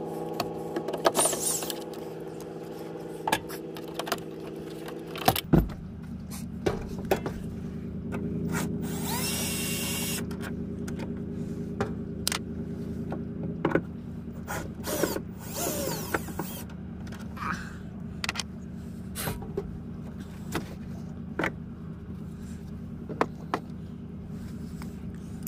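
Torx screws being taken out of a truck's inner door panel with a power driver: a short whir about nine seconds in, with many sharp clicks and clatter of the driver, bit and screws, over a steady low hum.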